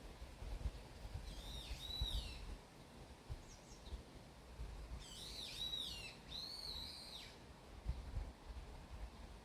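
A small songbird singing two short phrases of high, arching notes, one about a second in and a longer one about five seconds in, with a couple of faint chirps between. Under it, a low rumble with soft knocks.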